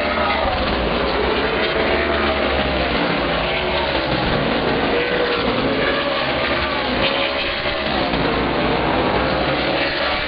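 A pack of super late model stock cars racing together on a paved oval, their V8 engines running hard at speed. Several engine notes overlap, each rising and falling in pitch as the cars pass and come off the corner.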